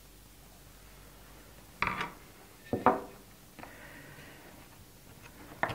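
Hard plastic parts of a coffee stirrer's casing being handled and fitted together. There are sharp clicks and knocks about two and three seconds in, a soft rubbing after that, and a few more clicks near the end.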